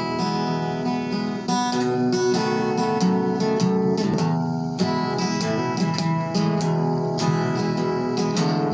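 Acoustic guitar strummed, playing a country-song intro: chords struck in a quick steady rhythm.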